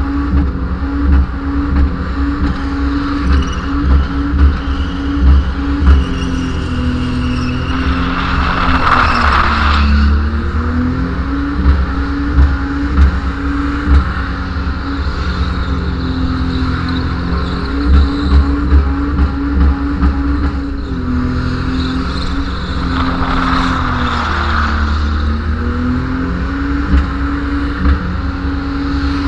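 Ford Falcon's six-cylinder engine held at high revs through a burnout, the rear tyres spinning in a cloud of smoke. The revs sag and climb back twice, about nine seconds in and again at about twenty-four seconds.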